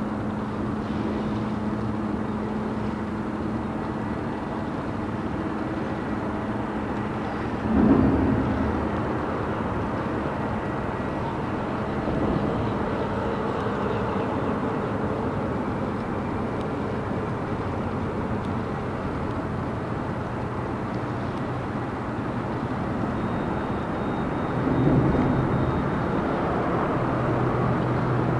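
Motorboat engines running steadily, with two brief louder surges: one about eight seconds in and another near the end.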